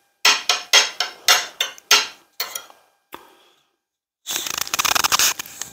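A spoon scraping and clinking against a plate, about eight quick strokes as rice and beans are scooped up with sauce, then a second of dense, close-up crackling from food being stirred or eaten near the end.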